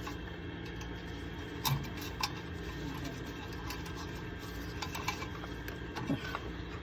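A steady low hum with a few light clicks and taps, the two loudest close together a little under two seconds in.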